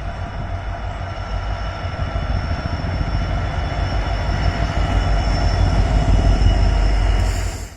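Express passenger train hauled by a WAP-7 electric locomotive running at speed: a deep rumble that grows steadily louder as it approaches, with faint steady high tones above it, cut off abruptly near the end.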